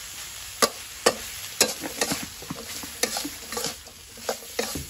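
A metal spoon stirs and scrapes against a metal wok, knocking against the pan over and over from about half a second in, over the steady sizzle of a stir-fry frying in oil.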